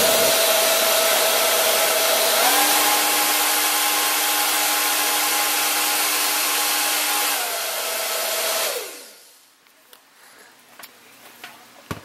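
Kingstar 1875W salon hair dryer blowing on low speed: a steady rush of air with a motor whine. About two and a half seconds in it is switched to high speed and the whine steps up in pitch. Near eight seconds it drops back to low, and about nine seconds in it is switched off, the whine sliding down as the motor spins to a stop.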